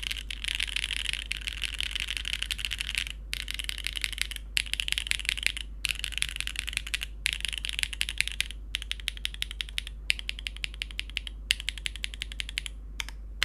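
Custom mechanical keyboard with Siliworks x Gateron Type R switches on a carbon fibre plate and GMK keycaps, keys struck very rapidly in runs of fast clicking separated by short pauses, thinning to a few single key presses near the end.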